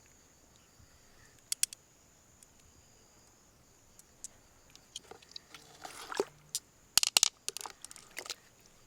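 Freshwater mussel shell being handled and pried open: a couple of sharp clicks early, then scraping and crunchy clicks of shell, loudest about seven seconds in.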